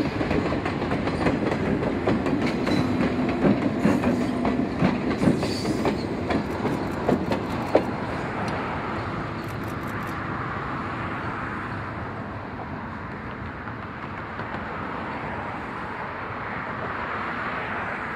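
Train rolling by, its wheels clicking over the rail joints through the first half, then a steady rumble that eases off slightly.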